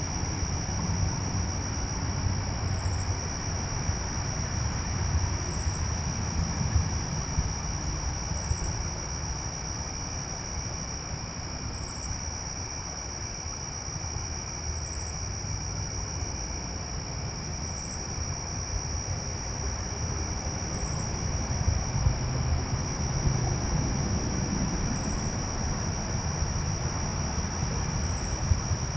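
Crickets trilling steadily in one continuous high-pitched tone, with faint short higher chirps every few seconds, over a low background rumble.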